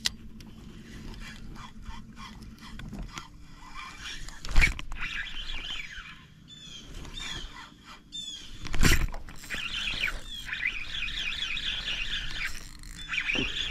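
Small birds chirping over and over, at first over a low steady hum that stops about three seconds in. Two sharp knocks come about four and a half seconds in and again about nine seconds in.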